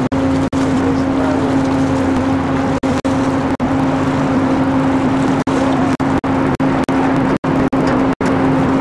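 Boat engine running steadily, a loud even drone with a strong hum over rushing noise. The sound cuts out for split seconds about a dozen times.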